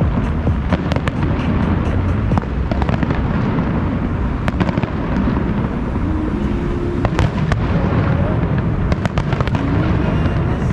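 Fireworks display: a continuous rumble of shell bursts with many sharp crackles and pops throughout.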